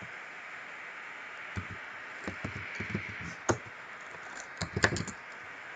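Sparse keystrokes on a computer keyboard: a few separate clicks over a steady background hiss, with a quick run of several clicks near the end.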